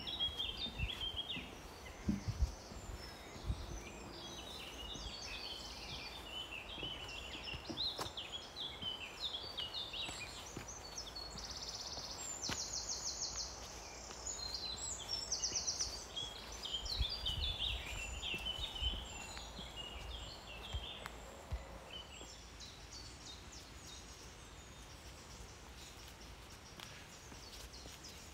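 Several birds singing and calling at once in dense trees, with a fast repeated trill around the middle; the song thins out in the last few seconds. Low thumps and rumble, the loudest a couple of seconds in, sound underneath.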